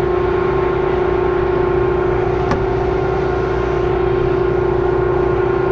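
Combine running steadily, a constant machine drone with a steady whining tone over it; one brief click about two and a half seconds in.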